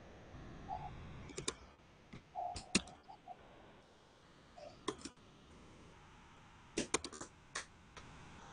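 Computer keyboard keys clicking in a few short runs of keystrokes, faint and spread out: typing on a laptop or desktop keyboard picked up by a video-call microphone.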